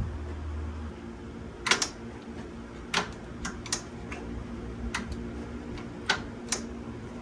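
About eight sharp clicks and taps at irregular intervals, from hands-on work around a Harley-Davidson's left footboard and new shift linkage, over a steady low hum.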